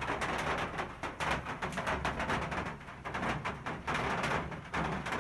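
Steady rain, many separate drops tapping on hard surfaces and leaves.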